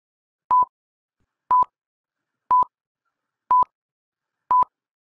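Countdown timer sound effect: a short, single-pitched beep once a second, five times, with silence between.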